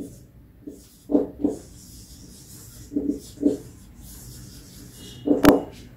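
Felt-tip marker writing on a whiteboard, a faint scratchy rubbing with a brief squeak near the end. Several short, low voice-like sounds stand out above it, with a sharp click about five and a half seconds in.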